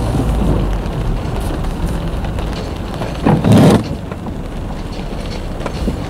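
Rain drops tapping on a car's windshield and roof, heard inside the cabin, over a low steady rumble from the car. About three seconds in, a brief louder rush lasts about half a second.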